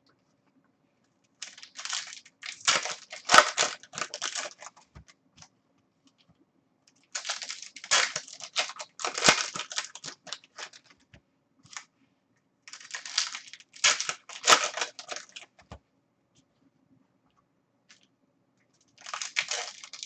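Trading card pack wrappers being torn open and crinkled by hand, in four crackly bursts a few seconds apart with quiet gaps between.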